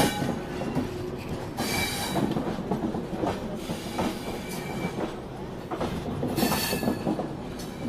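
Indian Railways passenger coaches rolling past, wheels clattering over the rail joints. Two short, shrill squeals come from the wheels, one about two seconds in and one near the end.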